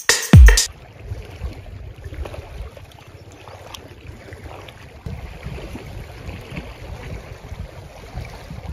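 A last deep bass hit, falling in pitch, ends about half a second in. After it comes a steady low rumble of wind on the microphone, with faint water lapping at a lake shore.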